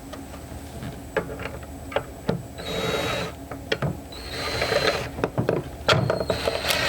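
Power drill running in three short bursts, among clicks and knocks of tools, while the new steering system is fastened into the boat's console.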